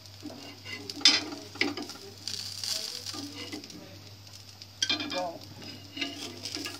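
Metal spatula scraping and clinking on a hot iron tawa as roasted semolina snacks are pried up and lifted off, with light sizzling of oil from the pan just taken off the flame. Sharp scrapes come about a second in and again near five seconds.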